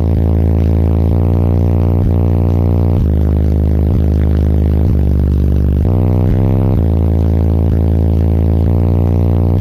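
Car-mounted Resilient Sounds Platinum 15-inch subwoofers playing a loud, deep bass line, the low notes held and changing about once a second. The bass is strong enough to blow the hair of someone leaning in at the window.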